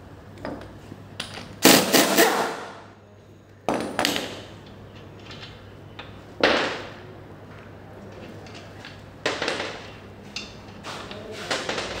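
Metal tools and brake parts clanking and clinking as they are handled, set down and knocked, with irregular knocks at uneven intervals; the loudest is a quick cluster of clanks about two seconds in.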